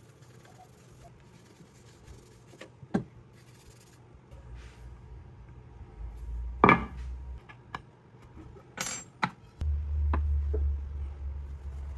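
Handling noises from a metal block plane being adjusted and worked on: a few scattered clicks and knocks, the loudest about seven seconds in, with light rubbing between them. A low hum comes in near the end.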